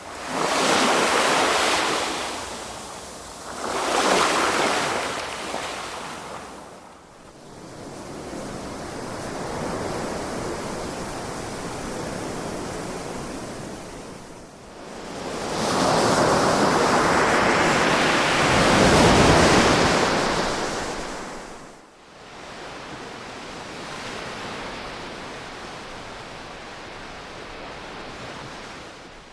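Ocean waves washing onto a shore, a steady rush that swells and falls back. Two short surges come in the first few seconds, and a longer, louder one comes a little past the middle.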